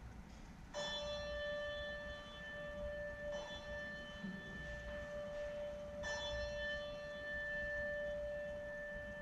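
A bell struck three times at the same pitch, about two and a half seconds apart, each stroke ringing on into the next.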